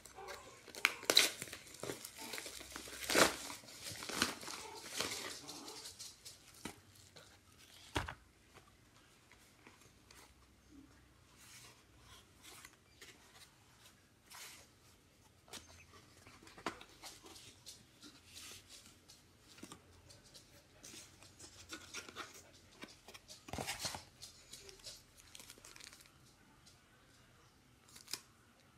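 Plastic courier mailer torn open and crinkled by hand, loudest in the first few seconds. After that come quieter rustling and handling of a small cardboard box and its paper wrapping, with a few light knocks.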